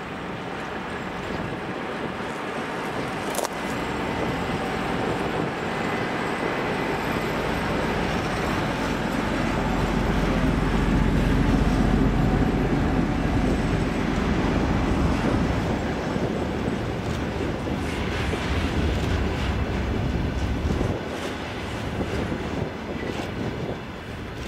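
Container freight train's wagons rolling past at speed, a continuous rumble and clatter of wheels on rail. It swells to its loudest about halfway through, then eases off toward the end.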